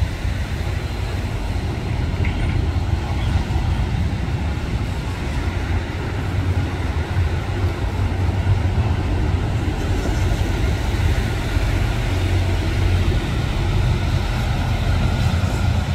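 Amtrak Superliner bilevel passenger cars rolling past on the elevated track: a steady, loud low rumble of wheels on rail that does not let up as the cars go by.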